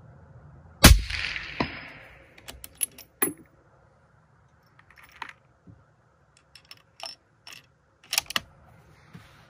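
A single suppressed rifle shot about a second in from a Remington 700 in .260 Remington fitted with an Otter Creek Labs Hydrogen-S titanium suppressor: a sharp crack with a short fading tail. It is followed by a series of metallic clicks and clacks as the bolt is worked.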